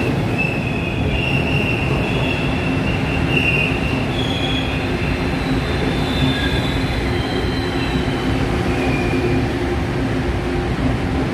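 Tze-Chiang push-pull express coaches rolling past at slowing speed as the train pulls into the station, with a steady low rumble and a high-pitched squeal from the wheels and brakes that comes and goes and wavers in pitch, strongest in the first half.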